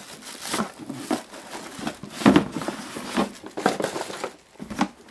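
Cardboard box and packaging being handled and slid off a coffee machine: irregular rustling, scraping and crinkling, loudest about two seconds in.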